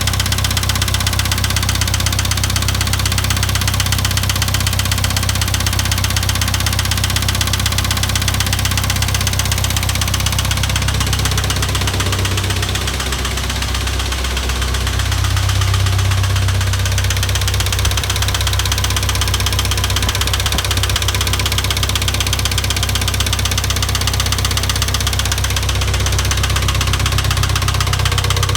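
International Harvester 2544 tractor engine running steadily with a knock that the owner has not yet traced to its source. The engine note dips briefly about halfway through, then comes back a little louder.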